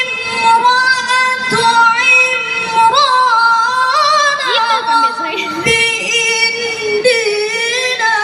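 A child reciting the Quran in melodic tilawah style, with long held high notes and ornamented runs that glide up and down in pitch.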